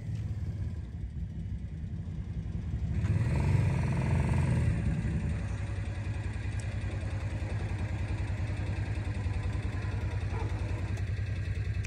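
A side-by-side UTV engine running steadily at idle. It picks up and gets louder about three seconds in, then settles back to an even run.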